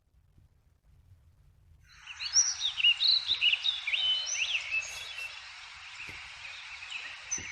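Birds chirping and twittering, many quick rising and falling notes, over a steady hiss of outdoor ambience that comes in about two seconds in. The chirping is busiest in the middle and thins out near the end.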